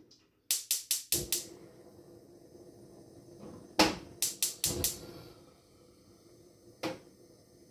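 Gas stove burner's spark igniter clicking as the burner is lit: a quick run of about five clicks, a second run of four a few seconds later, then one last click. A faint steady hum runs underneath after the first run.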